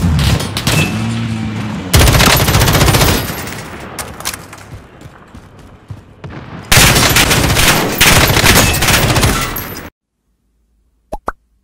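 Rapid automatic gunfire from a computer shooting game, in two long dense stretches, cutting off suddenly near the end. Two short blips follow.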